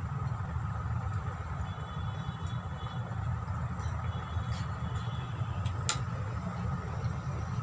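Steady low background hum, with a single sharp clink about six seconds in as a stainless steel tea mug is set down on the table.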